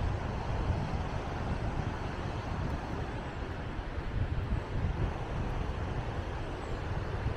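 Outdoor ambience dominated by wind rumbling and buffeting on the microphone, an uneven low rumble that comes and goes, over a steady background hiss.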